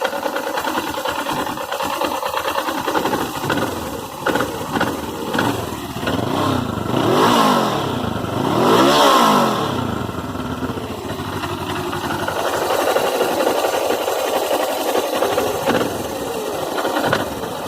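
Suzuki GS500E air-cooled parallel-twin engine idling with a rapid knocking rattle. Its revs rise and fall back twice in the middle. The owner suspects the knock comes from the clutch basket or the cam chain tensioner.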